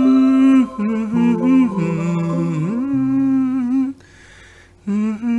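A voice humming a slow melody in long held notes, with a break of nearly a second about four seconds in.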